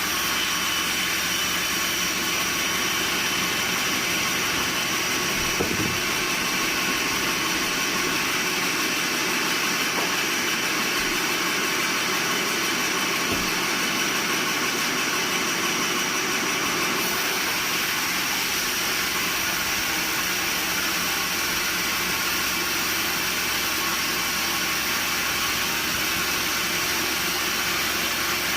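Sawmill machinery running steadily, a constant mechanical hum and hiss with a few steady tones that hardly change.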